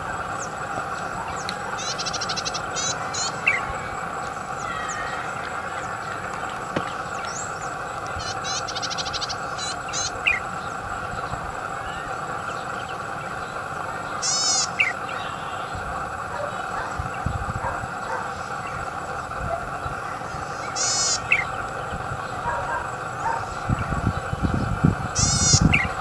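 Golden-headed cisticola singing: a short, high buzzy trill followed by a clear falling note, repeated every few seconds. A steady background drone runs underneath, with a low rumble near the end.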